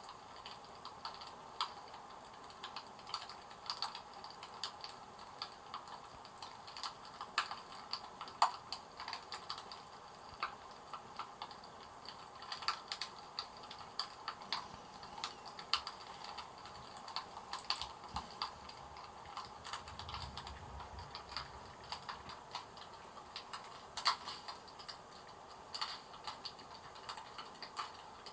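Irregular light clicks and crackles, several a second at uneven spacing, over a faint steady hiss.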